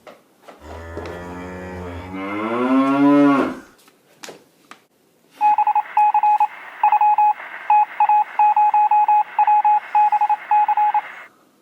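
A cow-moo sound effect: one long call that rises in pitch. After a short pause comes a long run of short and long electronic beeps at a single pitch, like Morse code.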